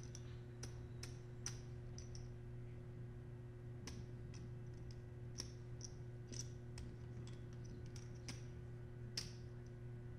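Poker chips clicking together in a player's hands as he counts out a stack: faint, irregular clicks, about one or two a second, over a steady low hum.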